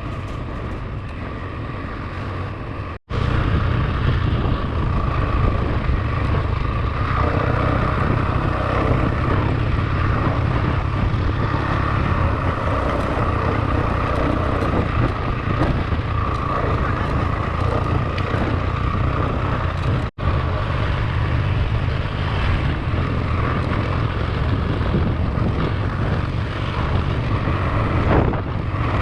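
Motorcycle engine running steadily under way, with wind rush. The sound breaks off for an instant twice, about three seconds in and again about twenty seconds in, and is louder after the first break.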